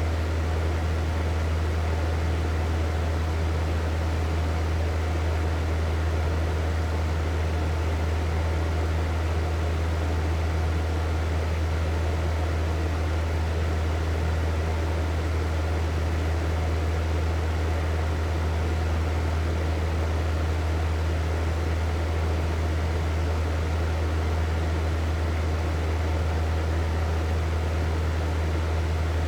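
Hair dryer running steadily: an even rush of blown air over a deep, constant motor hum.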